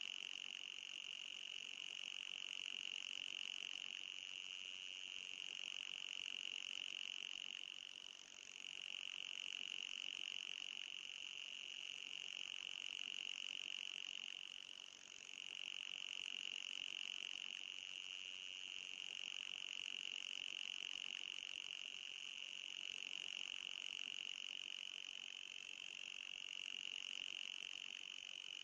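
High-pitched anti-mosquito repellent sound: a steady high whine with a fainter, higher hiss above it. It dips briefly twice, about 8 and 15 seconds in.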